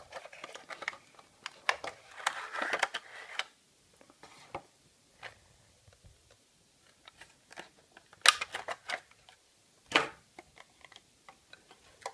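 Handling and opening a small cardboard model-airplane box and its clear plastic tray: scattered clicks, crinkles and rustles. They are busiest in the first few seconds, sparse in the middle, with louder crackles about eight and ten seconds in.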